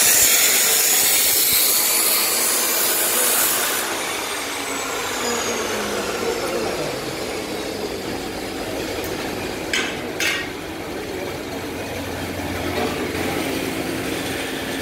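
Electric grinder working metal, a harsh hiss for about four seconds, then the motor winds down with a slowly falling whine. Two sharp metal knocks about ten seconds in, over general workshop clatter.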